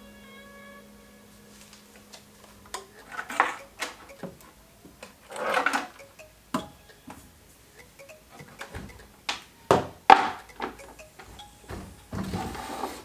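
Hands picking up and setting down the cabinets of a 2.1 desktop speaker set (a satellite speaker, then the wooden subwoofer) on a wooden shelf. There are scattered knocks and clicks and several short scraping and rubbing sounds, the loudest near the middle and near the end.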